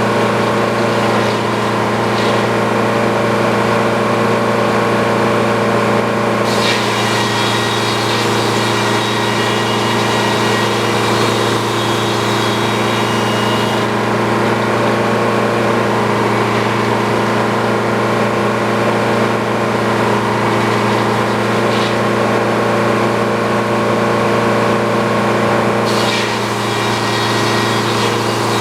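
Sawmill engine running steadily at a constant speed. A higher, whining layer joins in about six seconds in for several seconds, and again near the end.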